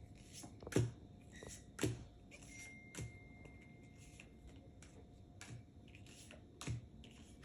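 Pokémon trading cards being handled and flipped through one by one: a few short, faint taps and slides of card stock, with quiet room tone between.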